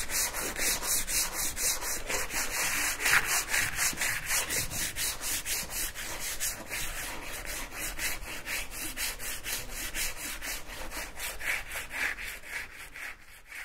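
Steady rhythm of hand-sanding strokes on a sculpture's surface, about four strokes a second.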